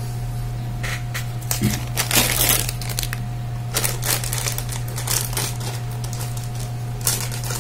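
Plastic packaging crinkling and rustling in several irregular bursts as it is handled, over a steady low hum.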